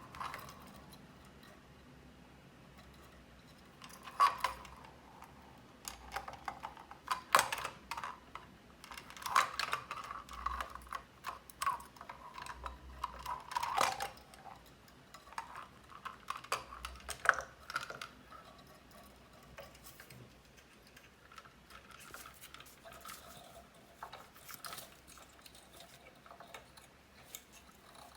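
Green-cheeked conure pecking and pulling at a foraging toy: irregular clicks, taps and small rattles of beak on hard toy parts, busiest through the middle and sparser near the end.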